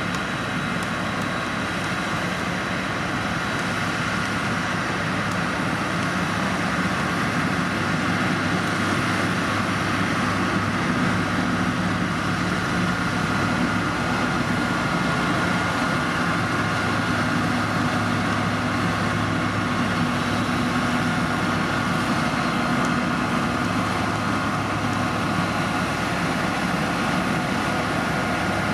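Heavy road-construction machinery, typically a motor grader's diesel engine, running steadily and continuously, with a steady high whine over the engine noise.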